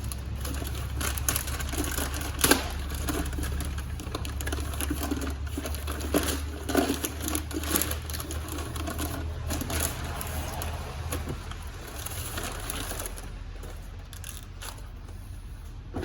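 Scattered clicks and knocks of hands handling plastic intake parts, the sharpest about two and a half seconds in and a cluster between six and eight seconds, over a steady low hum that fades about twelve seconds in.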